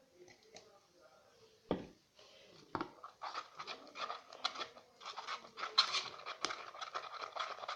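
Homemade glue slime being worked by hand: two sharp clicks, then from about three seconds in a dense run of sticky clicking and crackling.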